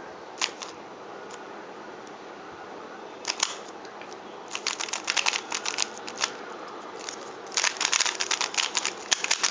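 Plastic 3x3 Rubik's cube layers being turned, clicking as they snap into place: a few single clicks at first, then quick flurries of turns about halfway in and again near the end, as the last layer is solved with OLL and PLL.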